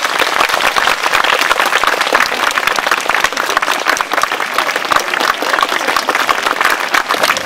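Audience applauding: a crowd of many people clapping steadily and densely.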